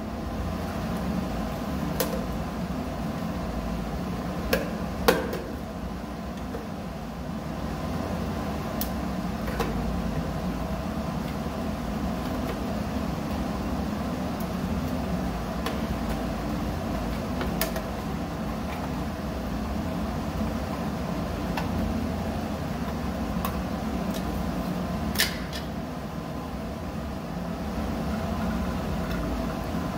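Steady machinery hum with several fixed tones. Over it come a few sharp clicks and knocks from a screwdriver and a plastic junction box being handled, the loudest about five seconds in and another near 25 seconds.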